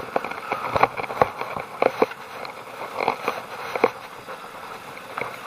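Bicycle rolling along a paved road: irregular clicks and light rattles of the bike's parts over a steady rushing noise.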